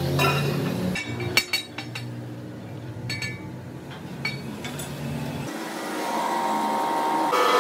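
Sharp metal clinks as a steel disc is set into the die of a heavy press, over a steady low machine hum. Near the end the hum drops away and a rising whine sets in as the press is worked from its lever.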